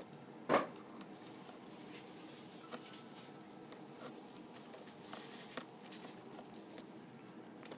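Guinea pig chewing and tugging on a mitsuba (Japanese parsley) stalk: a run of small, irregular crunching clicks, with one louder short noise about half a second in.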